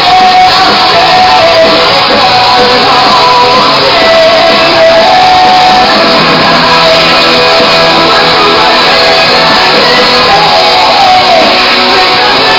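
Loud rock music with a shouted, sung vocal over electric guitar.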